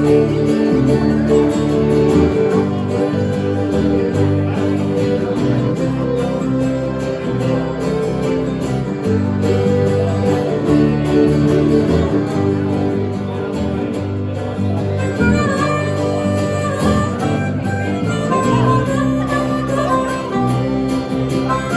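Country band playing an instrumental passage: fiddle over guitar. A higher lead line comes in about two-thirds of the way through.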